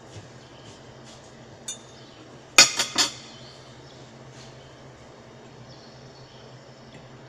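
Kitchenware clinking: a light tick, then about a second later three quick, sharp clinks close together, over a steady low hum.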